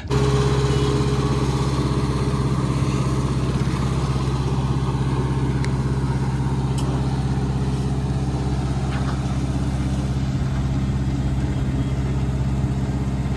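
A heavy engine of road-construction machinery running steadily at a constant speed, with an even, unchanging hum.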